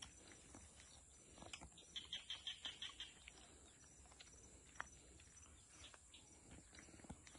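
Quiet lakeside outdoor ambience: a bird gives a quick run of about eight high chirps about two seconds in, over a steady high hiss, with faint small clicks of food being handled.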